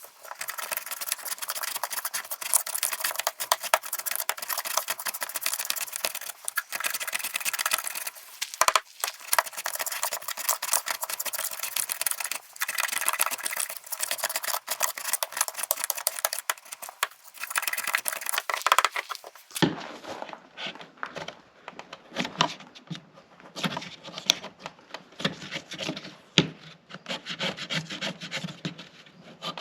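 Wood being worked by hand with a file or rasp: repeated scraping strokes. About two-thirds of the way in the strokes become quieter and duller.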